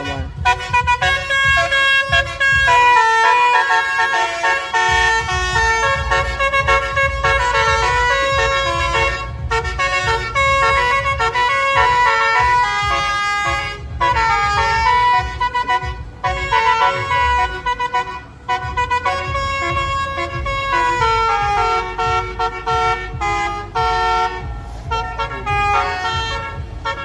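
Bus telolet horn, a set of multi-tone air horns, playing a melody of held and changing notes over a low rumble.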